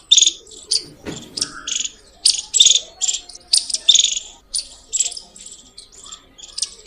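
Indian palm squirrel calling: a long run of short, sharp, high-pitched chirps, about two or three a second, in an uneven rhythm.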